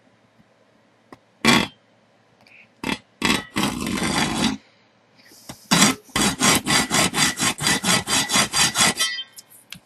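Hacksaw blade scraping across 1/8-inch L-shaped metal angle: a few separate strokes, then a quick, even run of short back-and-forth strokes for about three seconds that stops suddenly, notching the cut mark at the 4-inch line.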